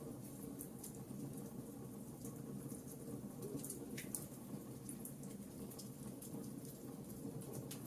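Wood fire crackling in a fireplace: irregular sharp pops and snaps over a steady low rumble of the burning logs.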